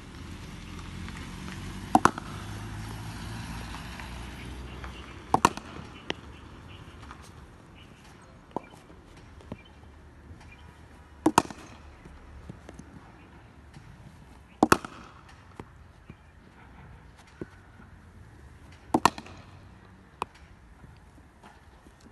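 Cricket bat striking thrown balls in net practice: five sharp cracks spaced a few seconds apart, most of them heard as a quick double knock, with fainter knocks between them.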